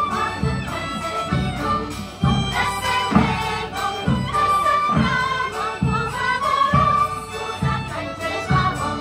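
Women's folk choir singing a Polish folk song together, with a band keeping a steady beat about once a second.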